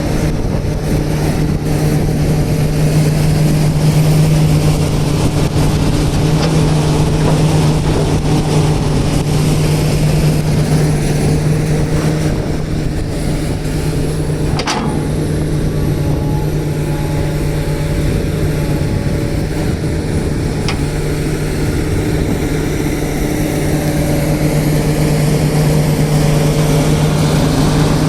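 Diesel engine of a JCB 3DX backhoe loader running steadily, swelling slightly a few times, with one sharp click about halfway through.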